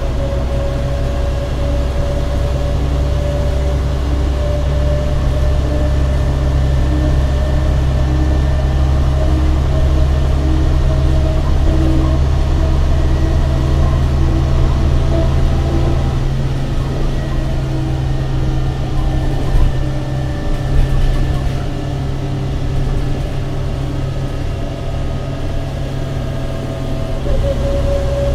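An MCW Metrobus double-decker's diesel engine running under way, heard from inside the lower saloon: a loud, steady low drone with a faint whine above it. The deepest part of the drone drops back about halfway through.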